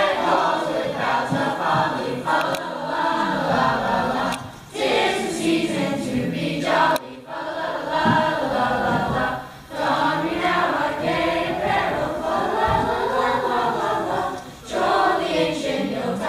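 A chorus of voices singing a song together, line by line, with short breaks between phrases.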